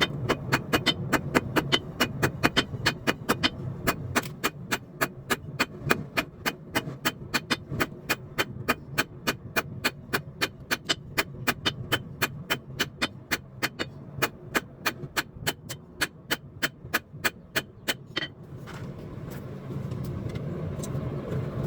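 Hammer blows on hot steel at an anvil, rapid and evenly spaced at about four a second because the footage is time-lapsed, over a steady low hum. The hammering stops about eighteen seconds in, leaving only a steady hiss and hum.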